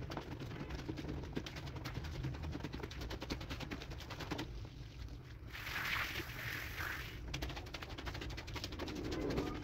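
Scrub brush working over a wet, soapy rug: a dense run of quick, scratchy crackles, with a louder hissing spell about halfway through.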